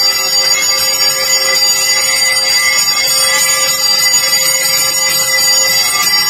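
Temple bells ringing steadily and continuously, a dense clangour of many held ringing tones, as during a deeparadhana lamp-offering ritual.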